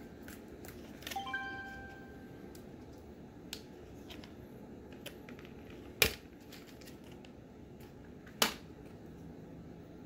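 Packaging being handled and cut: a short ringing click about a second in and a few light clicks, then two sharp snips about two and a half seconds apart as the zip ties holding the nylon holster to its card are cut.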